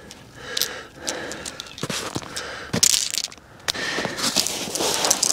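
Crusty snow crunching and crackling in irregular bursts as a bare hand digs and scrapes through it, with boots crunching on it as well.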